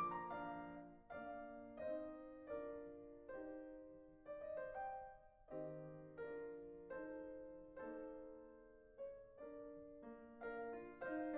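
Background piano music: a slow, gentle piece of notes and chords, each struck and then fading.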